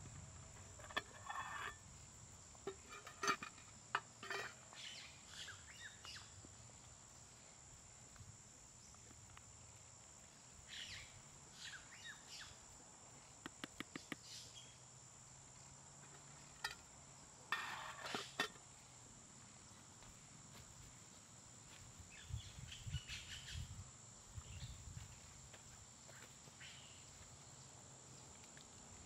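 A wooden stirring stick and a metal camp pot with a wire bail handle giving scattered knocks, scrapes and clinks as stew is stirred and the pot is handled, with a few soft thumps late on. Under it runs a steady high-pitched insect drone.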